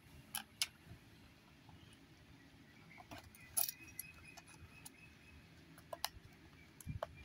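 Faint scattered clicks and crinkles of a plastic blister pack and its card backing being handled and opened to free a diecast toy car, with one louder crackle a few seconds in.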